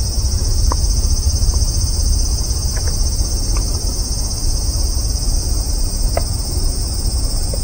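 A steady, high, shrill drone of cicadas in the trees, with a low rumble of wind or handling on the microphone beneath it and a few short chirps.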